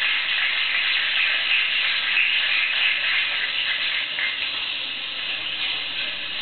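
Steady hiss with no speech, strongest in the upper range.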